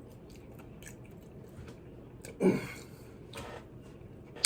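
Close-up chewing of a fried chicken tender: soft, wet mouth sounds with small clicks, and two slightly louder short sounds about halfway through.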